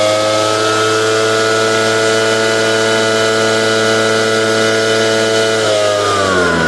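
Echo PB770H backpack blower's two-stroke engine running steadily at speed, then falling in pitch near the end as it drops back toward idle.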